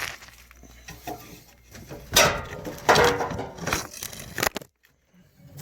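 Irregular knocks, rattles and scrapes of parts and tools being handled during dryer repair, loudest about two and three seconds in, cutting off abruptly near the end.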